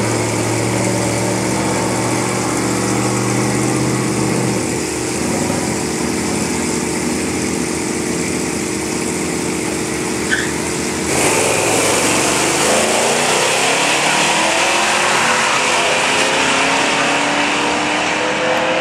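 Two drag-racing cars, one a 1991 Pontiac Trans Am, hold at the starting line with their engines running steadily. About eleven seconds in they launch together, and the engines rev hard with rising pitch through the gears as they run down the strip.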